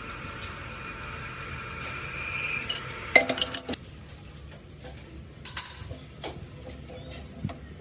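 Metal parts and tools clinking and knocking as they are handled in a machine shop. A faint hum fades out over the first three seconds, then comes a quick run of sharp metallic clinks and a few scattered knocks.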